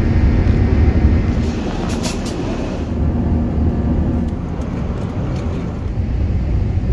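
Airbus A380 cabin noise heard from a window seat over the wing: a steady engine roar and low airframe rumble.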